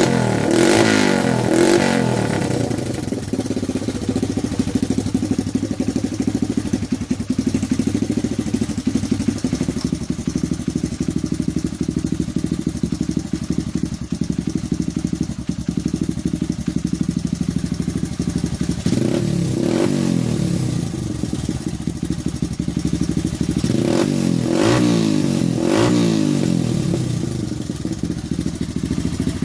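Honda XL100S's single-cylinder four-stroke engine idling through a homemade exhaust silencer, revved briefly near the start, once about two-thirds through and twice near the end. It ticks over evenly now that a blocked carburettor jet has been cleared.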